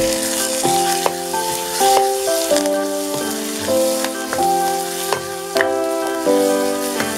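Chopped red onion, garlic, green chillies and curry leaves sizzling in hot oil in a wok, stirred now and then. Background music with piano-like notes plays along.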